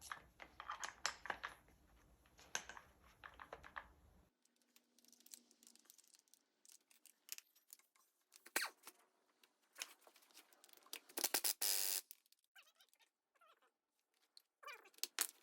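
Scattered light clicks, taps and scrapes of metal tools being handled, with a denser rattle of about a second near the end.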